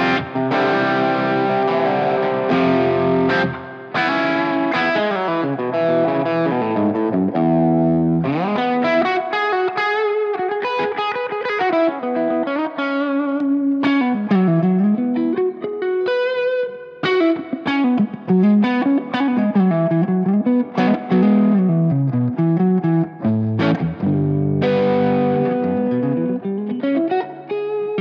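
1976 Gibson ES-335 electric guitar played through a Vemuram Jan Ray overdrive pedal into a clean Fender Princeton amp, giving a lightly overdriven rhythm tone a bit like a Fender amp turned up. Strummed chords for about the first eight seconds, then single-note riffs and lines with occasional chords.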